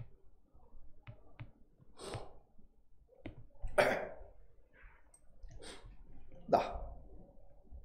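A man coughing several times in short bursts, the second cough the loudest, with a few faint clicks before them.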